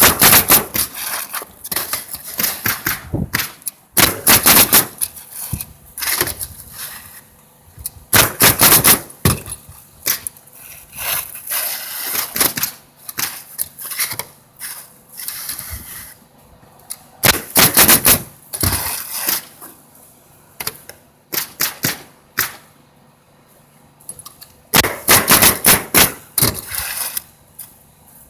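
Roof nailing in quick bursts: clusters of sharp, rapid strikes, each lasting about a second, repeating every few seconds with quieter gaps between.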